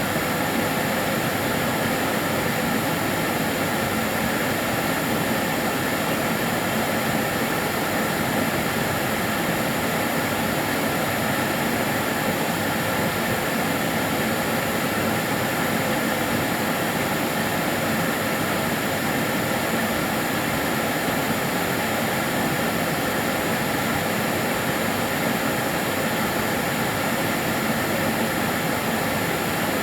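Karcher DS 6 Premium water-filter vacuum cleaner running steadily, a constant whooshing motor and airflow noise with a faint steady whine.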